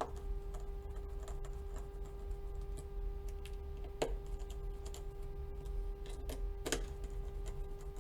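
Small Phillips screwdriver driving screws into a phone's plastic midframe: scattered light clicks and ticks, a few sharper ones about four seconds in and near the end, over a steady faint hum.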